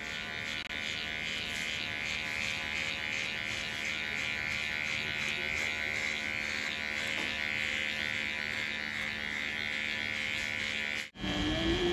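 Electric hair clippers buzzing steadily as they cut short hair on the back and sides of a head. The buzz cuts off suddenly near the end.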